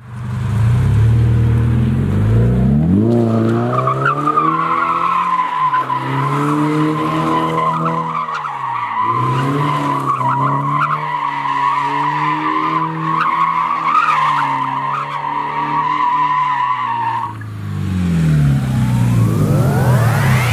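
Subaru BRZ's flat-four engine, breathing through an Invidia exhaust, revs up and down while the tyres squeal in one long, steady screech as the car drifts. The squeal cuts out a few seconds before the end, and the engine keeps revving, rising toward the end.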